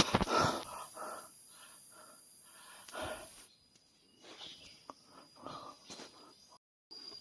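A man breathing hard and out of breath after heaving a dirt bike up a slope, his breaths growing fainter and further apart, with a faint steady high insect-like tone behind.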